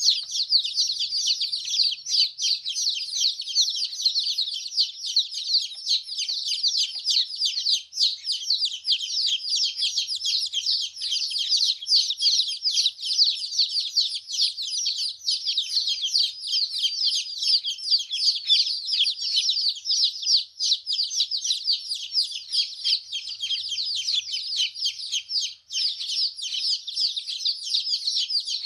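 Many domestic chicken chicks peeping at once: a dense, continuous chorus of short, high peeps that each slide down in pitch.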